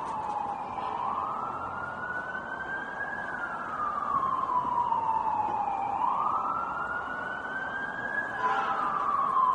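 Emergency vehicle siren in slow wail mode, rising and falling in pitch about every five seconds, over the hum of city traffic; it grows louder near the end as it comes closer.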